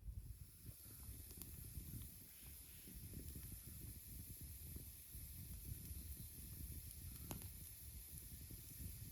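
Campfire burning with a steady faint hiss and uneven low rumble, and a few sharp crackles, the clearest about a second and a half in and about seven seconds in.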